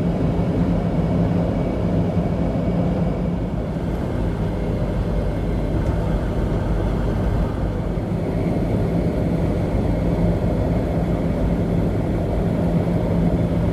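Steady engine and road noise inside the cabin of a third-generation Toyota 4Runner driving at a constant speed, an even low hum with no change in pitch.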